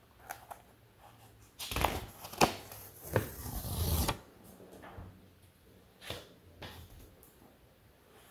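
A Post-it note being peeled from its pad and handled close to the microphone: a loud papery rustle of about two seconds, starting a little under two seconds in, with a few sharp taps in it. A couple of faint clicks follow later.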